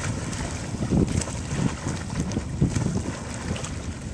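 Wind buffeting the microphone in irregular low gusts.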